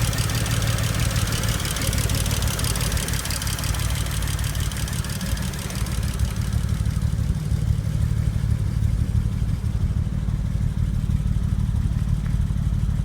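BMW 335i's turbocharged straight-six engine idling steadily, a continuous low hum, with a higher hiss that fades about halfway through.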